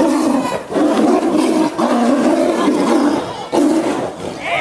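Siberian tigers growling as they fight, in a string of loud, rough growls with short breaks between them.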